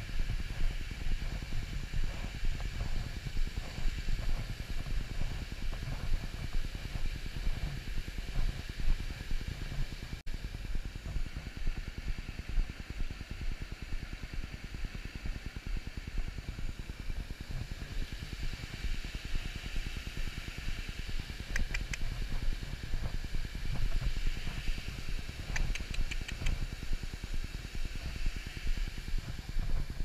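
Wind rumbling on the microphone of a body-worn camera and footsteps on a woodland path, over the steady rush of a small stream. Two short runs of quick high ticks come about two-thirds of the way through and near the end.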